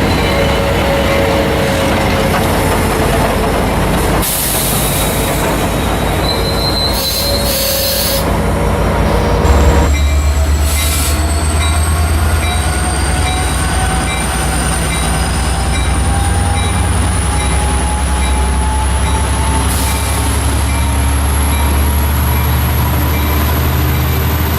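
Train running past close by: a steady loud rumble of locomotive and rail cars, with thin high tones that climb slowly in pitch through the second half.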